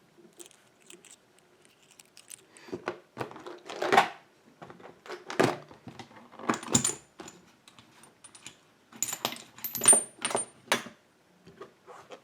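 Key and plug follower worked into a brass pin-tumbler padlock cylinder: a string of metallic clicks, clinks and scrapes, with a few short, bright rings of small metal parts.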